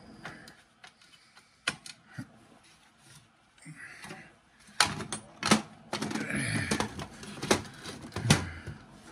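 Clicks and knocks of a cordless circular saw's plastic housing and metal parts as it is taken apart with a screwdriver and handled on a workbench. A few isolated clicks come first, then a busier run of knocking and rattling in the second half.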